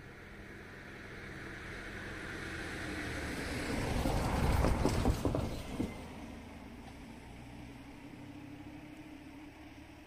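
A van driving past close by: its engine and tyre noise build up, peak with a few sharp knocks about five seconds in as it rolls over the level crossing, then fade away.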